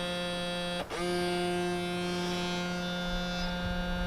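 BMW X5 (E53) power-folding door mirror motor running with a steady hum, with a brief break just under a second in. The motor can be heard working but the mirror does not move, a fault in the folding mechanism.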